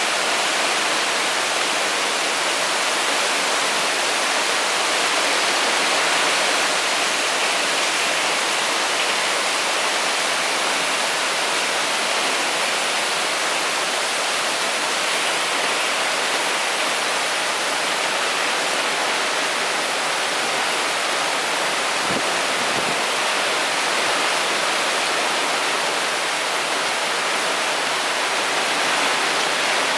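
Heavy typhoon rain pouring steadily in strong wind, an even hiss that does not let up. A couple of faint low knocks sound about two-thirds of the way through.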